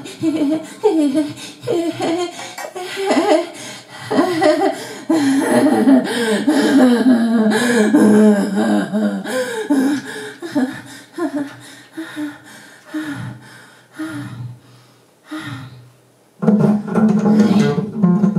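Free-improvised wordless singing by a woman, with fast warbling, swooping pitch slides and laugh-like vocal sounds, against an acoustic double bass. After a sparser stretch, a steady held low tone comes in about two seconds before the end.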